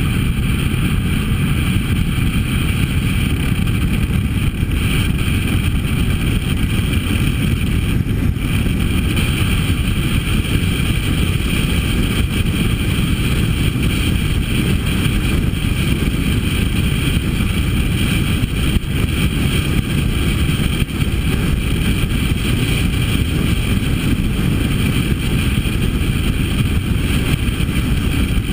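Harley-Davidson V-twin motorcycle engine running steadily at cruising speed, with wind rushing over the microphone.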